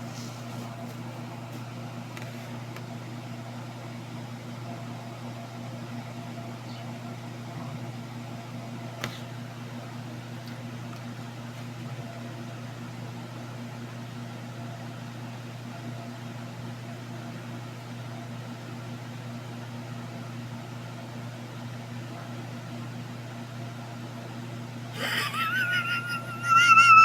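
A steady low mechanical hum, like a fan or household appliance running. A single faint click about nine seconds in, and near the end a loud, wavering high-pitched tone sets in.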